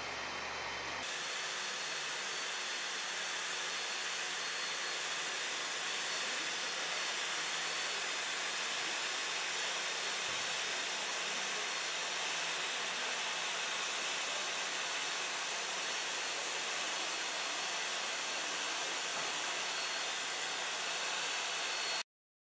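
Weldy EX2 hand-held plastic extrusion welder running while welding a seam on a plastic tank: a steady hissing rush with a faint high whine, cutting off suddenly near the end.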